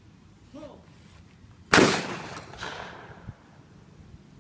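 A single shotgun shot about two seconds in, its report echoing and dying away over about a second and a half.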